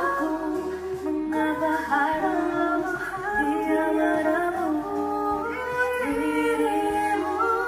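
Three young women singing a slow pop ballad live in close vocal harmony, holding and sliding between notes, backed by piano.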